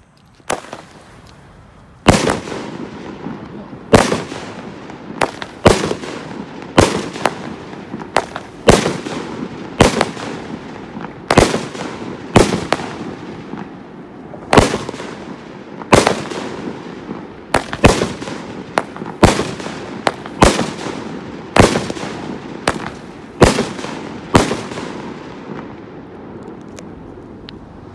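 A 200-gram, 16-shot consumer firework cake (Golden Prince) firing its shots one after another, each a loud bang trailing off in a short echo, about one every one to two seconds.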